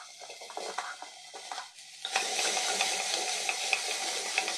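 Pumpkin cubes dropped from a steel bowl into an aluminium pressure cooker, with scattered small knocks. About two seconds in, a louder steady sizzle starts suddenly as the pumpkin fries in hot oil, with a wooden spoon stirring and scraping the pot.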